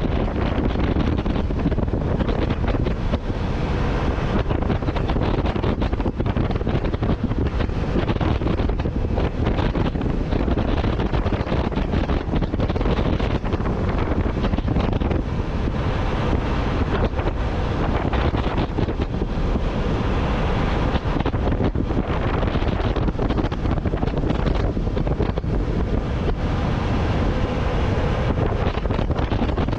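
Wind buffeting a microphone on the roof of a moving semi-truck cab, a steady rush mixed with the truck's road and engine noise.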